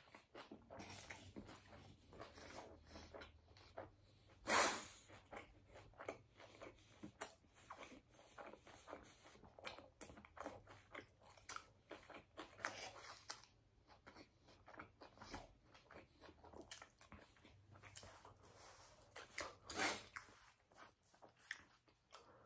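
A person chewing and biting into a cheesesteak: faint, irregular crunching and chewing, with a louder crunch about four and a half seconds in and another near twenty seconds.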